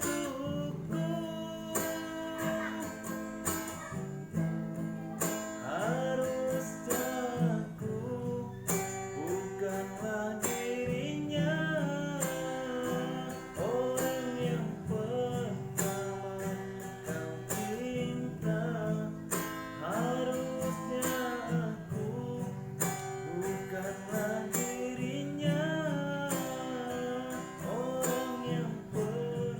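A man singing a song in a husky, hoarse voice, hoarse from a cough, over strummed acoustic guitar accompaniment.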